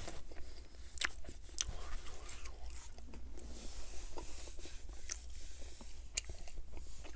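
Close-miked chewing of a mouthful of Burger King Whopper Jr. burger, with scattered wet mouth clicks every second or so.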